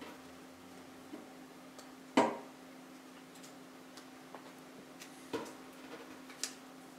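Paper-craft handling at a tabletop: a sharp tap about two seconds in, then lighter taps and clicks near the end as small objects and paper loops are handled and set down, over a steady faint hum.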